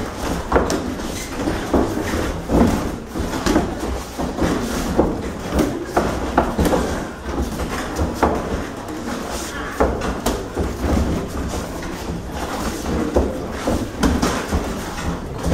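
Boxing sparring: irregular thuds of gloved punches landing and feet scuffing on the ring canvas, several a second, over a murmur of spectators' voices.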